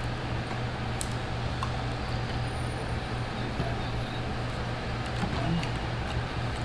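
Steady background hum and rumble, with a faint click about a second in.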